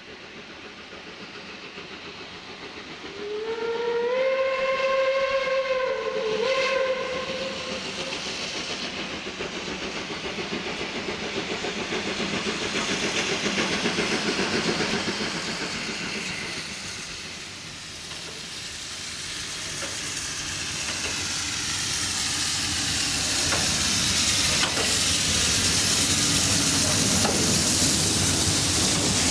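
Steam locomotive whistle blown about three seconds in: one long call of several tones that rises as it starts, lasting about five seconds. After it, the approaching steam train's hiss and running noise build steadily, loudest near the end as the locomotive, 01 1066, draws level.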